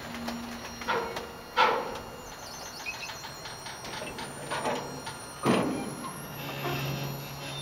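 A stopped, loaded autorack freight car gives a few short metallic creaks and squeals, with a faint low steady hum joining about halfway through.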